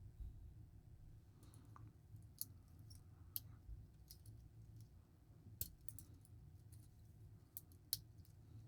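Near silence broken by a few faint, scattered small clicks of a metal watch bracelet and clasp being handled.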